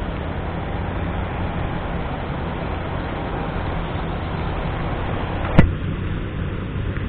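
Motorcycle riding along a wet city road: steady engine hum with wind and road noise on the helmet or bike camera microphone. A single sharp knock cuts through about five and a half seconds in.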